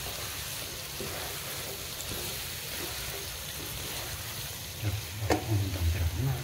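Okra frying in a wok with a steady sizzle while a wooden spatula stirs it. Near the end the stirring gets heavier, with a sharp knock about five seconds in.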